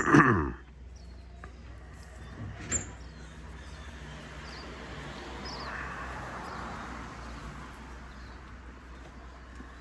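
A loud, short cry falling in pitch at the very start, then a vehicle passing by: an even noise that swells to a peak mid-way and fades again. Faint bird chirps are heard throughout.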